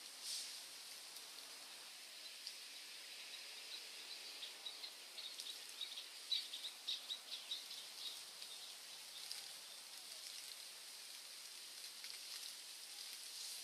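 Birds chirping over a steady high hiss, with a quick run of sharp chirps in the middle.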